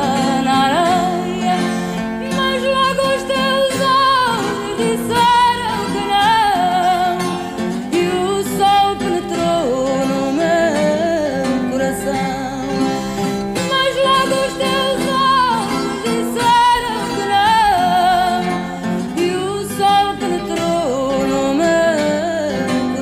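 Background music: a fado song, a voice singing a wavering, ornamented melody over plucked guitars.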